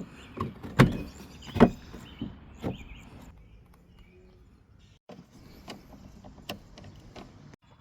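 Plastic bumper cover of a Toyota 4Runner being handled and fitted back onto the truck: a series of short knocks and clicks, several in the first three seconds and more after a quieter stretch in the middle.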